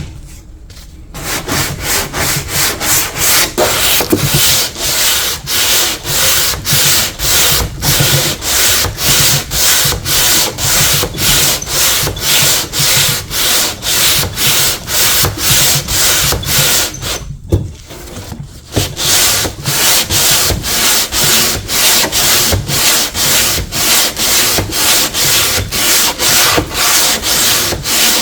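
Wood being hand sanded with sandpaper, stripping old paint and finish. It goes in steady back-and-forth rubbing strokes, about two a second, with a short pause a little over halfway through.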